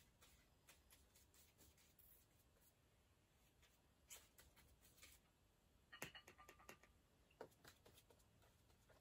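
Near silence: faint scratching of a paintbrush stroking acrylic paint onto paper, with a few soft taps and clicks around six seconds in.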